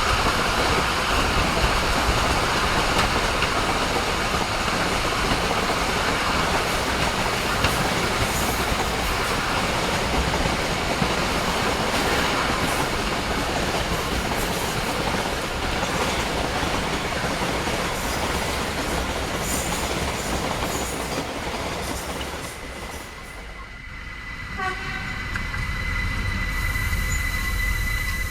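Train running on the track: a steady, loud rumble and rattle of wheels on rails. Near the end it drops away, and a thin, steady high squeal is left.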